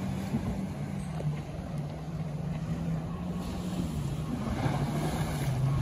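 A motorboat engine running steadily out on the water: a low hum that drifts slightly up and down in pitch, over the wash of small waves.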